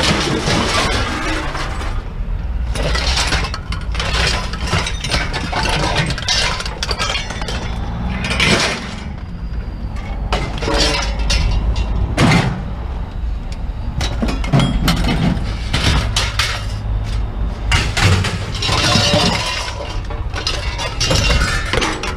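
Scrap metal being tossed onto a pile: irregular clanging and crashing impacts of sheet metal, over a steady low engine rumble.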